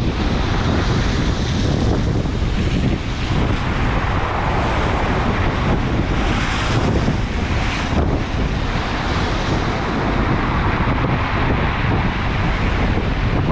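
Storm surf: heavy waves breaking and washing in, with strong wind buffeting the microphone. The hiss of the surf swells twice, about a second in and again around six to eight seconds in.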